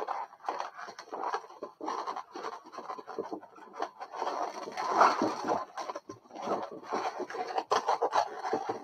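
Inflated latex modelling balloons rubbing and scraping against each other and against the hands as they are twisted and woven together, in an irregular run of short strokes.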